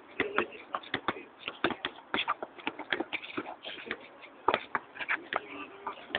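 Players' shoes shuffling and scuffing on an outdoor asphalt court, making irregular sharp taps and scrapes, several a second.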